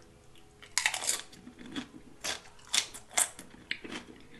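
Close-miked chewing of a loaded tortilla chip from a plate of nachos: a series of sharp, crisp crunches, roughly one every half second.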